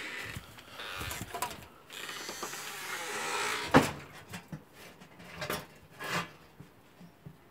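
Rustling and handling noises in a hay-strewn wooden rabbit hutch, then one sharp knock a little under four seconds in, followed by two lighter knocks.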